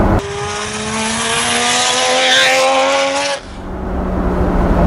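Nissan Cefiro A31 drift car's turbocharged straight-six revving up steadily under acceleration, its pitch rising for about three seconds, then cutting off suddenly and giving way to a steady cabin drone and road noise.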